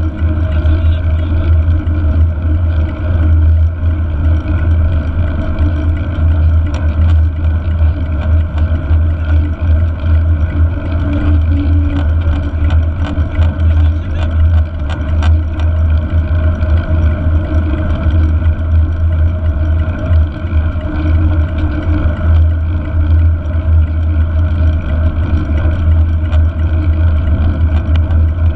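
Steady loud rumble of wind buffeting a handlebar-mounted GoPro on a mountain bike at racing speed, mixed with tyre and road noise on asphalt, with a few faint clicks around the middle.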